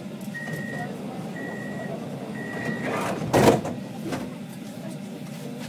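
Tram door-closing warning: three short high beeps about a second apart, then the doors shut with a loud thump about three and a half seconds in, over the low rumble of the stationary PESA tram.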